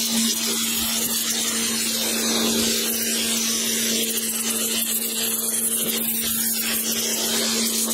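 Kärcher electric pressure washer running, its motor and pump giving a steady hum under the hiss of the water jet. The owner says the washer is not working at full pressure and is far weaker than it used to be.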